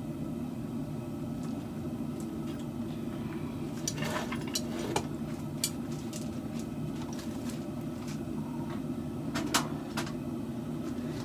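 A steady low machine hum with a few scattered light clicks and knocks, the sharpest about nine and a half seconds in.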